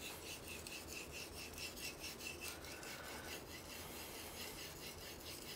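Knife blade honed back and forth on a wet Tsushima nagura Japanese natural whetstone with light pressure and water only: a faint scraping in quick, even strokes, several a second. These light passes refine the edge.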